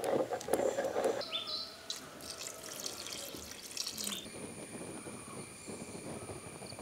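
A pot of curry bubbling on the boil while a wooden ladle stirs it. Then ground masala paste is poured in as a thin liquid stream. About four seconds in, this gives way to a steady high-pitched whine.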